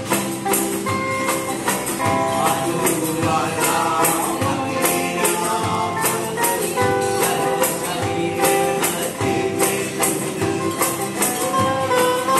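Small live acoustic band: two acoustic guitars strummed over a hand drum and percussion keeping a steady beat, with a man singing.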